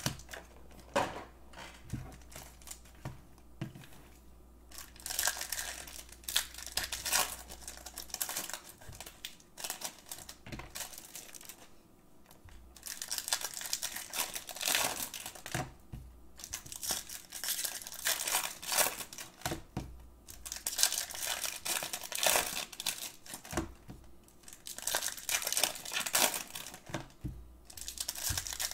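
Foil wrappers of baseball card packs crinkling and tearing as the packs are handled and ripped open, in irregular rustling bursts with small clicks and a few short pauses.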